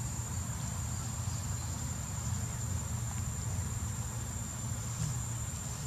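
Insects shrilling in a steady, unbroken high-pitched drone, over a constant low rumble.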